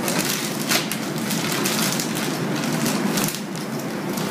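A clear plastic accessory bag crinkling and rustling as hands handle and open it, in irregular crackly bursts over a steady low background hum.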